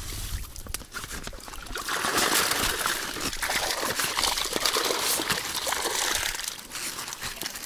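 Water pouring and trickling out of a fishing keepnet as it is lifted from the river with the catch inside. The rush of water starts about two seconds in and eases off near the end.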